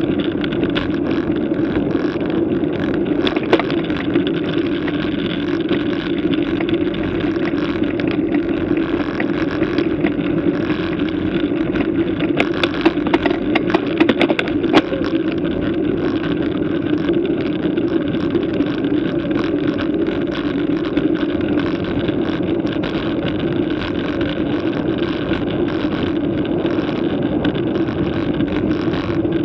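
Steady wind and tyre rumble from a bicycle ridden uphill at about 20 km/h, heard on a bike-mounted camera's microphone. A run of sharp clicks and knocks comes between about 12 and 15 seconds in.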